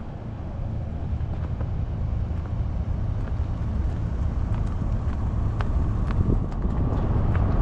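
A car running, its low rumble of engine and road noise growing slowly louder, with scattered light clicks.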